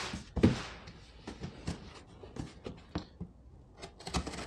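Handling noise at a cardboard shipping box: a sharp knock about half a second in, then scattered light clicks and taps. Near the end a utility knife starts slitting the packing tape along the top of the box, a steady scratchy noise.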